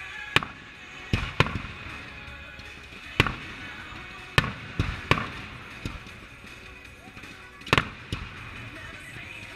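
Fireworks display: aerial shells bursting with about ten sharp bangs at irregular intervals, some coming in quick pairs.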